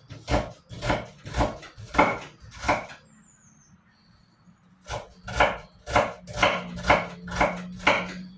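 Knife slicing onions on a cutting board: sharp chops about two a second, pausing for about two seconds in the middle before resuming. A faint steady low hum runs under the second half.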